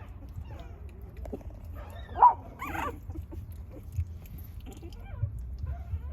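Puppy whimpering and yelping in short high calls, the loudest yelp about two seconds in, followed closely by another.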